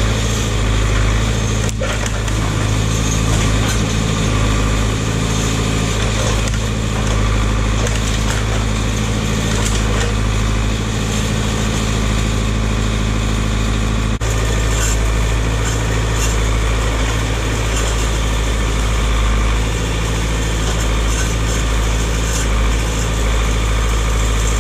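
Tractor engine running steadily while working the front-end loader, with an occasional faint knock.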